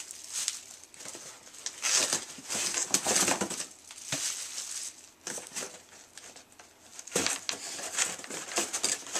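Plastic packaging crinkling and rustling as wrapped items are handled and lifted out of a cardboard box, in irregular bursts with short quieter gaps.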